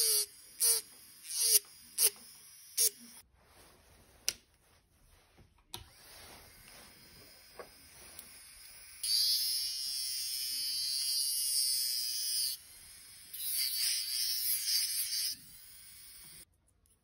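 Rotary handpiece spinning a rubber polishing wheel. It gives a few short bursts in the first three seconds, then two steady runs of several seconds each, the second starting after a short break, as the wheel polishes a metal piece.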